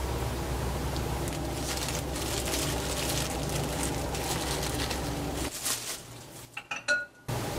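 A wooden spoon scoops and presses soft tuna and scrambled-egg topping into fried tofu pockets on a plate, with soft scraping over a steady low hum. About two thirds of the way in it goes much quieter, with a few small clicks and a brief clink.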